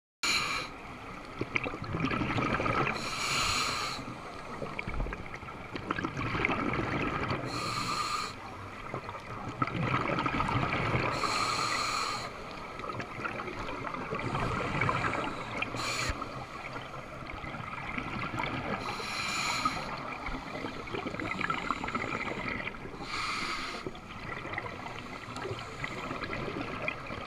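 Scuba diver breathing underwater through a regulator, heard through the camera's underwater housing: a regular cycle about every four seconds of a hissing breath and a rush of exhaled bubbles.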